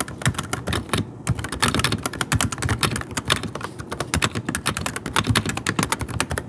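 Continuous rapid typing on an Akko 5075B Plus V2 gasket-mount mechanical keyboard fitted with Akko Haze Pink silent switches: a dense run of soft keystroke clicks, several a second.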